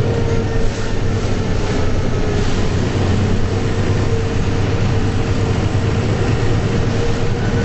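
Mercedes-Benz O405 bus underway, heard from inside the cabin: a steady low engine and road drone with a steady mid-pitched whine over it.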